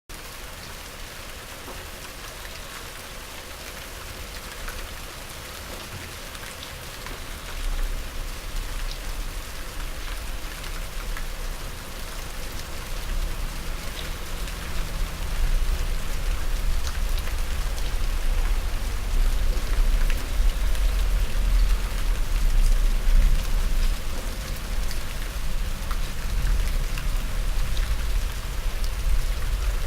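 Steady medium rain falling on surfaces: a dense hiss with scattered individual drop ticks. About eight seconds in a low rumble comes in underneath and grows, so the second half sounds heavier and louder.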